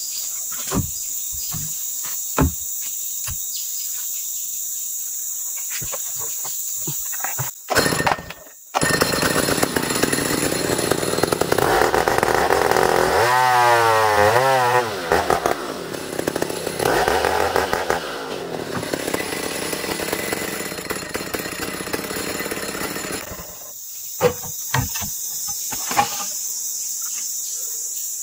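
A chainsaw starts about eight seconds in, runs loud with its revs rising and falling while it cuts into a hardwood ulin log, and stops about 23 seconds in. Steady high insect buzzing before and after it.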